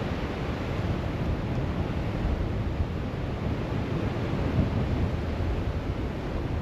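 Strong wind buffeting the microphone: a steady, rumbling rush of gusts.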